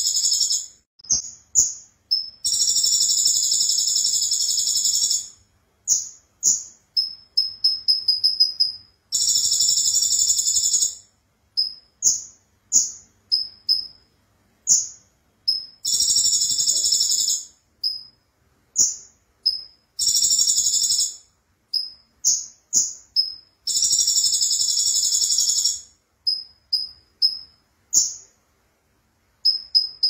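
Konin (kolibri ninja), a small black sunbird, singing hard: long, very high trills of two to three seconds alternating with runs of short, quick chirps.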